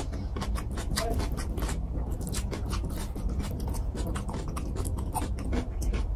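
Close-up wet chewing and lip smacking of a mouthful of fish curry and rice: a quick, irregular run of sticky clicks, over a steady low hum.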